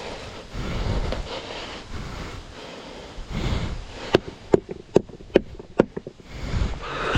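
Gusts of wind buffeting the microphone, then a quick run of about eight sharp knocks or clicks over two seconds, each with a short ring.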